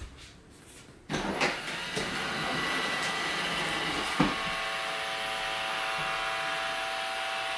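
iRobot Roomba j7+ robot vacuum starting a cleaning run: about a second in, its suction and brush motors start and it drives off its dock, settling into a steady whirr. A click comes about four seconds in, after which a steady hum with a few held tones rides over the motor noise.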